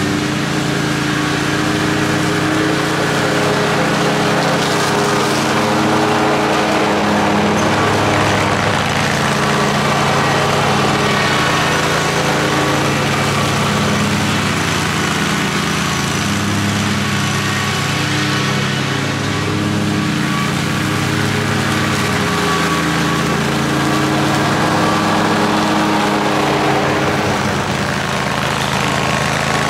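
A 60-inch zero-turn mower running steadily while mowing grass: an even engine drone that hardly changes in level.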